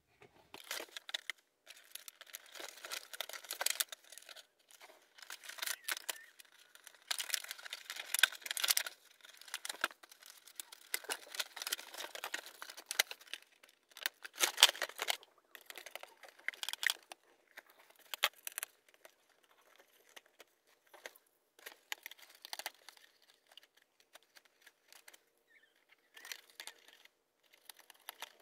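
Doll packaging being handled and torn open by hand: irregular bursts of crinkling and tearing with sharp clicks and snaps, busiest in the first half and thinning out later, as the doll is freed from its box.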